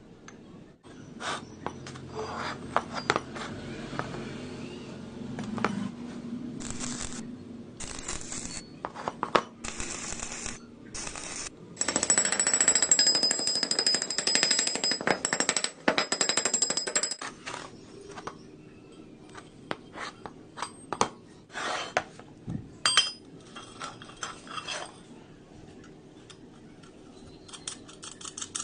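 Metal parts clinking and knocking as they are handled, with a louder steady whirring noise lasting about five seconds in the middle.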